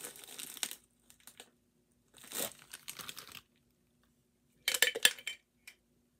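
Funko Soda collectible can being opened by hand: three short bursts of tearing and crinkling at the lid, the last with several sharp clicks.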